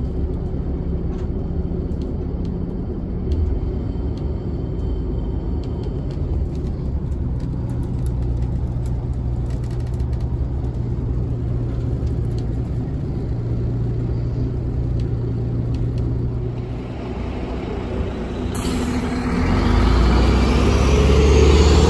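A bus's engine and road noise heard from inside the passenger cabin while riding: a steady low rumble with an even engine hum. Near the end it switches abruptly to a bus passing close by outside, louder and rumbling.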